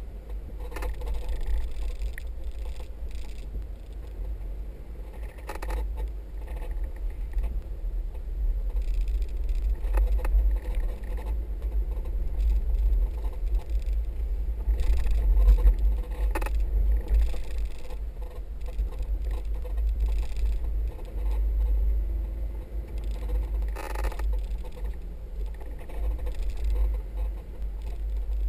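A 4x4 driving over desert sand dunes: a steady low rumble of the vehicle running and wind, with scattered knocks and rattles as it bumps over the sand.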